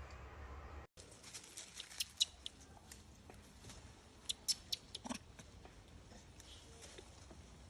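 Scattered small clicks and ticks, with the loudest few around two seconds and four to five seconds in, typical of macaques moving about and handling things at close range. A brief dropout about a second in.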